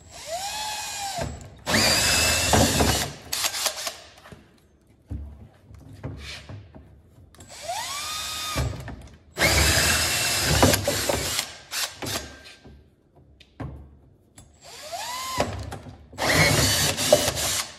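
Cordless drill running a 2-inch hole saw through a plastic skid plate, three holes one after another. Each time the motor whines up in pitch, then the saw bites in with a loud cutting noise for a second or two before it stops.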